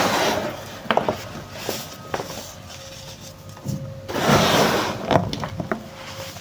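Compressed baking soda chunks being crushed and crumbled: crunchy crackling with scattered sharp snaps, and two longer, louder crunches, one at the start and one about four seconds in.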